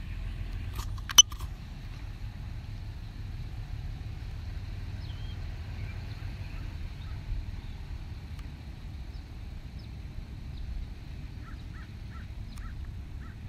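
Steady low outdoor rumble, with faint bird chirps scattered through it and a short run of chirps near the end. A sharp click about a second in.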